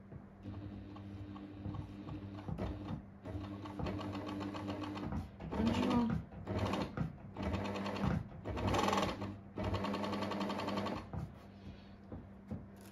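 Pfaff 1229 electric sewing machine running at speed, freshly cleaned and oiled. It hums quietly at first, then runs fast in several spurts with short stops between, loudest from about five seconds in, and slows to a stop near the end.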